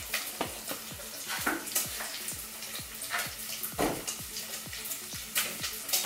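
Background music with a steady low beat, about two to three beats a second, over a continuous sizzling hiss of food frying in a pan. A few knocks and clatters stand out.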